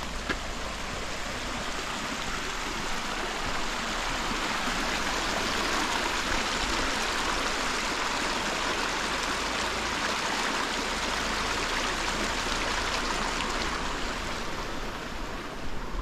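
Small mountain creek rushing and splashing over rocks, growing louder through the middle and fading again near the end.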